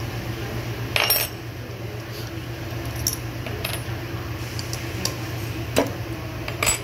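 Light metallic clinks and taps of a steel pin spanner being picked up and set against the wheel's flange nut on an air vertical grinder, about five sharp clicks with the loudest about a second in, over a steady low hum.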